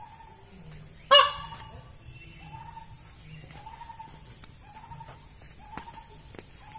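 Indian peafowl giving a single loud, harsh call about a second in. A faint short note repeats about once a second in the background.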